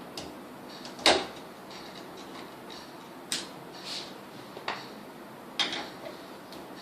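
Screwdriver working the screws out of a door knob: a few scattered short metallic clicks and knocks, the loudest about a second in.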